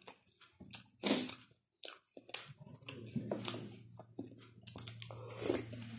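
A person chewing and lip-smacking while eating instant noodles and boiled pork fat, a run of short, irregular wet mouth sounds. A steady low hum comes in about two seconds in.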